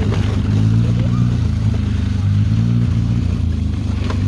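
Engine of a Polaris off-road vehicle running steadily, its low drone wavering slightly in pitch.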